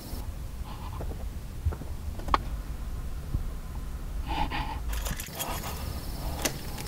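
Short, tense gasps and breaths from a person, over a steady low rumble, with a couple of small clicks about two seconds in.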